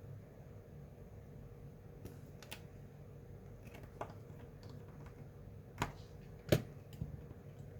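Small tools clicking and tapping against the parts of an opened iPhone 6S during a battery replacement: about six scattered sharp clicks, the loudest about six and a half seconds in, over a faint steady hum.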